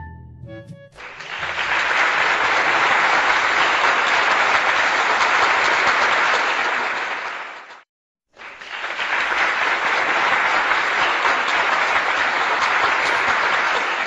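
A crowd applauding, fading in about a second in, breaking off for a moment around eight seconds in, then starting again.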